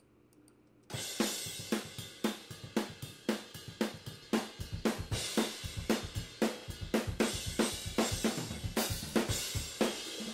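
Raw, unmixed drum-kit recording played back from the multitrack session: the overhead microphones carrying a steadily ridden ride cymbal with snare and kick hits underneath. The playback starts about a second in.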